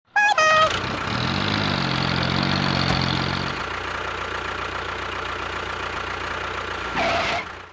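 An engine running steadily at idle, with a pitched hum that drops away about three and a half seconds in. A short stepped falling tone sounds at the very start.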